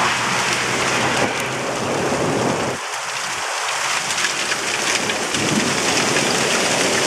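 Hail pelting down hard and steadily, with thunder rumbling underneath. The rumble drops away briefly about three seconds in, then builds again.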